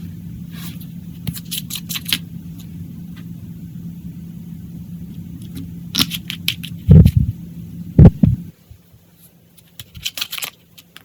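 Clear slime being handled and mixed: short sticky clicks and crackles over a steady low hum, with two heavy dull thumps near the middle. The hum stops after the second thump.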